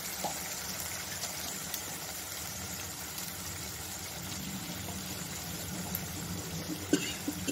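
A steady low hum in the kitchen, with one sharp knock of the metal spatula against the wok near the end.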